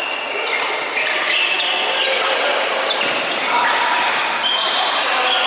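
Badminton play in a large echoing hall: sharp racket strikes on the shuttlecock every second or so, with short shoe squeaks on the court mat.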